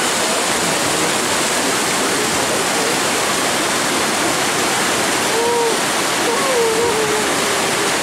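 Steady rush of white water from a rocky mountain stream and the waterfall above it. Faint voices of people come through about two-thirds of the way in.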